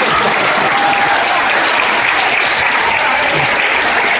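Audience applauding and cheering after a joke from the speaker, steady and dense throughout.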